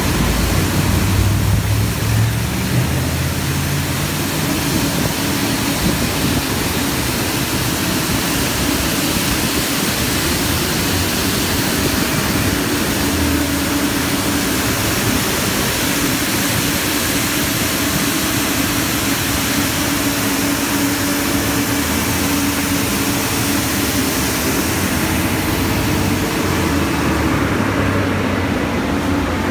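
Global M4 street sweeper running along a curb: a steady engine drone under the continuous hiss of its spinning gutter broom scrubbing dust and debris off the pavement. The brushing hiss thins near the end as the machine moves past.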